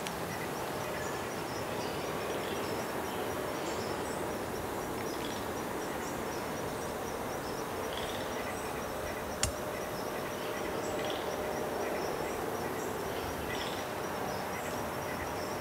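Quiet woodland ambience: a steady high insect trill with scattered short bird chirps. A single sharp click about nine and a half seconds in.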